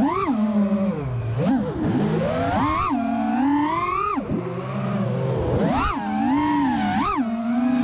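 FPV freestyle quadcopter's brushless motors and propellers whining. The pitch swoops sharply up and falls back about six times as the throttle is punched and released through flips and dives.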